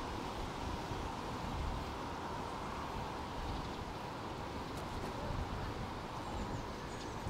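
Steady rolling noise of a bicycle ride, heard at the rider's ears: tyres running on pavement with wind rushing past.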